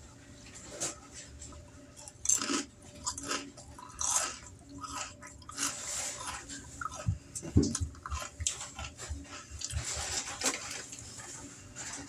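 Someone chewing a mouthful of crunchy Pebbles Cereal Crisps close to the microphone, with many irregular crunches.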